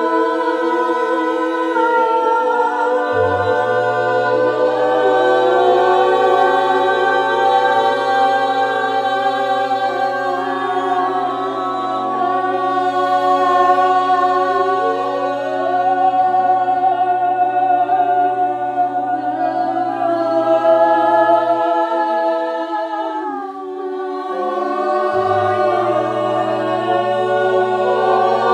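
Several voices toning together in a sound circle, holding long notes that slide slowly from pitch to pitch, over a low held tone that drops out briefly near the end.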